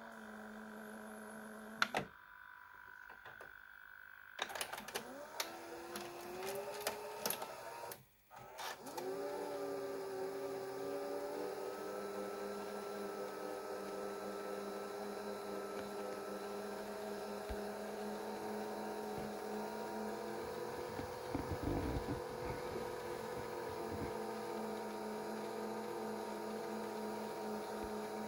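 Aiwa HV-M10SH VHS player's tape mechanism: a button click, then the transport clicking as its motors whir up in pitch. After a brief break, the motors settle into a steady whir, with a few more clicks about three quarters of the way through.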